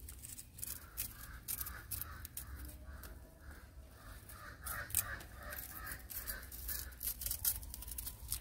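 A kitchen knife shaving the skin off a raw yam in short scraping strokes. A bird calls over and over in a quick repeated series behind it.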